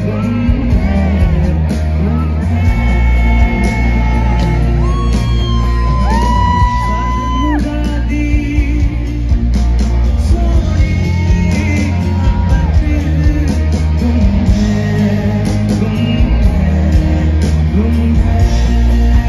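Live rock band playing through a PA, with a lead singer, electric guitars, heavy bass and drums, heard from the crowd. The singer holds a long note about five seconds in and another about eleven seconds in.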